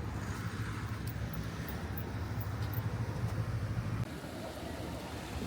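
Steady low traffic noise from road vehicles, cut off abruptly about four seconds in and replaced by a quieter outdoor background.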